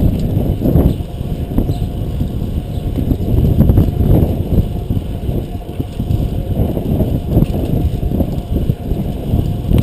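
Wind buffeting the microphone of a GoPro riding on a fixed-gear bicycle at speed, mixed with rumble from the tyres on the road. The low rushing surges up and down.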